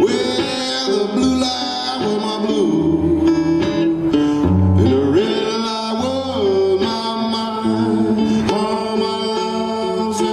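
Live blues: a harmonica plays held, bending notes over a resonator guitar picking a steady accompaniment.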